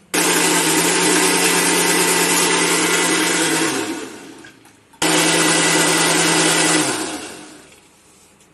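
Electric mixer grinder (mixie) churning curd and sugar into lassi in its steel jar: run twice, a long run then a shorter one, each time holding a steady hum and then winding down as the motor is switched off.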